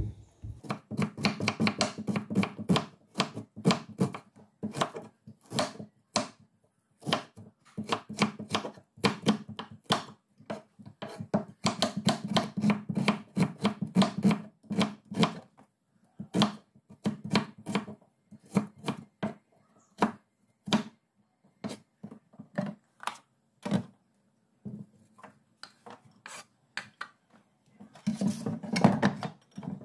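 Chef's knife slicing an onion on a wooden cutting board: quick, sharp knocks of the blade through the onion onto the board, in runs with short pauses. A louder, denser burst comes near the end.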